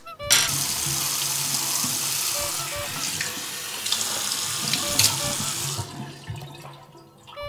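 Bathroom tap running hard into a sink, turned on suddenly just after the start, with a few splashes in the basin as the water is used; the flow stops about six seconds in.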